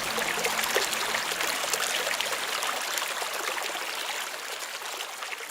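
Water running in a stream, a steady trickling and babbling that slowly fades out.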